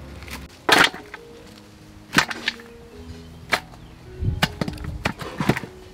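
Knives chopping vegetables and meat on wooden cutting boards: a handful of sharp, irregular strikes, with soft background music underneath.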